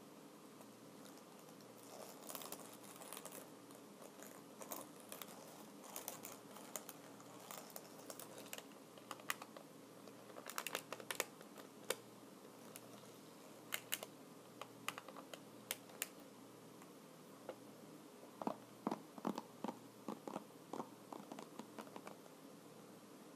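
Typing on a computer keyboard: irregular, crisp key clicks, some in quick runs, some single. Near the end the strokes turn into duller, lower-pitched taps.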